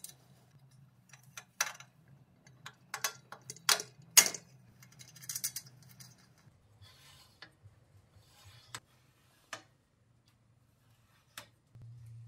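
Metal clicks and clinks as a steel coil spring is hooked onto the bolts of a motorcycle kickstand and handled. There are two sharper clinks about four seconds in, then a few lighter single ticks.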